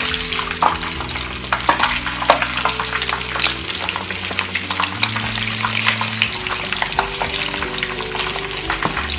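Breaded chicken cutlet deep-frying in hot oil in a small frying pan, a dense, continuous crackle and sizzle full of sharp pops, while it is turned over with tongs.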